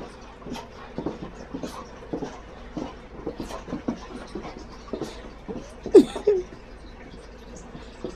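Dog panting and huffing in quick irregular puffs as it spins in circles chasing its tail, with one louder short yelp falling in pitch about six seconds in.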